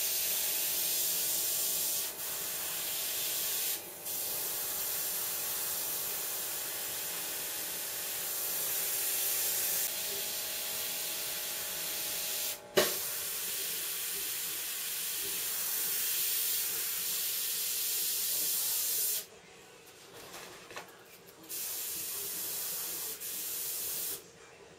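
Airbrush (Harder & Steenbeck Infinity) spraying paint: a steady hiss of air that breaks off briefly several times as the trigger is let go. There is a sharp click about halfway through, and a longer pause with short hisses near the end.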